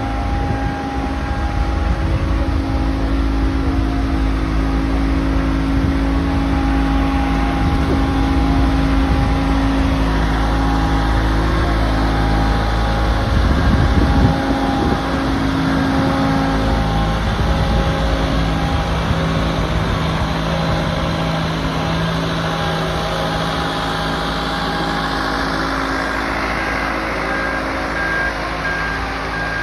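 Diesel engine of a Marine Travelift mobile boat hoist running steadily while it carries a sailboat in its slings. The engine note changes about halfway through, and a repeating beep starts near the end.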